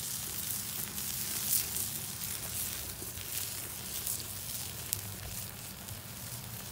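Hamburger patties sizzling on aluminium foil over a wood fire, a steady hiss with scattered crackles from the burning wood.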